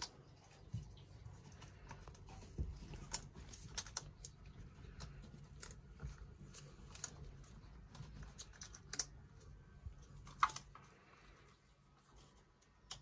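Scattered small plastic clicks and rattles of fuel-injector wiring connectors being handled, pushed onto the injectors of a Volvo Penta marine engine and locked with their retaining clips. The sharpest click comes about ten seconds in, over a faint low hum.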